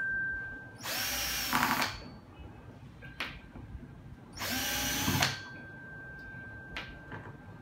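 Hitachi DS10DL cordless driver drill running in two short bursts, about a second in and again around four and a half seconds in, its motor pitch rising and falling as it backs screws out of a sander's housing. Light clicks come between the bursts.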